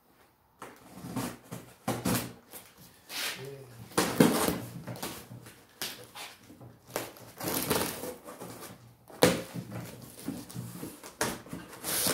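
A blade slitting the packing tape on the end of a cardboard shipping box, with irregular scraping, tearing and rustling of the tape and cardboard.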